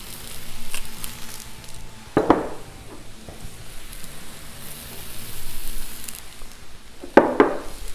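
Sliced bell peppers and onion dumped onto a hot Blackstone steel flat-top griddle, sizzling along with chicken already frying on it. A steady sizzle, brightening as the onion goes down about five seconds in, with two sharp knocks, one about two seconds in and one near the end.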